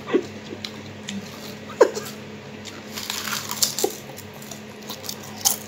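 Potato chips being crunched and chewed, with chips crackling in a ceramic bowl as a face pushes into the pile. A few short vocal sounds break in, about two and four seconds in.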